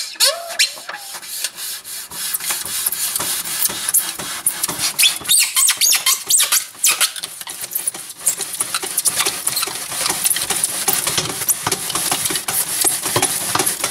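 A cutting wire being drawn through a thick polystyrene (EPS) insulation board, squeaking and rasping in quick, rough strokes.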